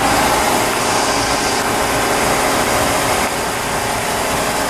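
Freshly rebuilt carbureted inboard boat engine running steadily just after a cold start. The carburetor has no choke.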